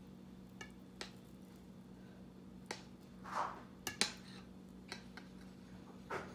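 Kitchen knife cutting through soft steamed khaman dhokla on a plate: several sharp clicks of the blade meeting the plate, the loudest just after four seconds in, and a short soft swish as it slices through the spongy cake. A steady low hum runs underneath.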